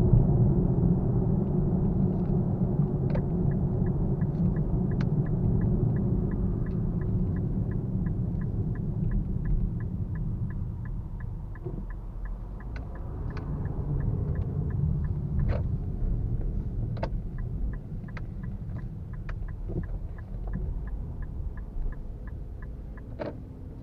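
Low in-cabin road and engine rumble from a moving Nissan Fuga 370GT with its VQ37VHR V6, growing gradually quieter. A few seconds in, a turn-signal indicator starts ticking evenly, about three ticks a second, for about ten seconds, with a few scattered louder clicks.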